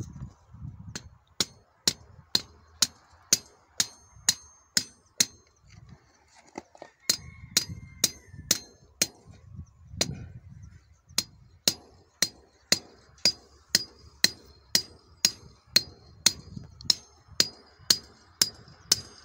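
Hammer striking steel reinforcing bar: a steady run of sharp, ringing metallic strikes, about two a second, with a short pause around six seconds in.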